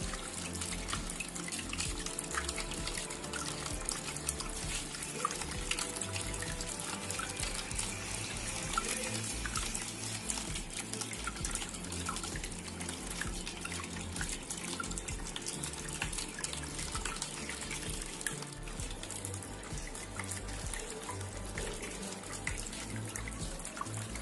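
Water falling and splashing steadily in a small tabletop waterfall fountain, with many fine drip ticks, over background music.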